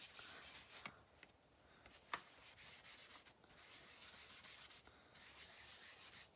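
Faint rubbing as wax is buffed over painted tags by hand, coming in several spells of about a second each with short pauses between.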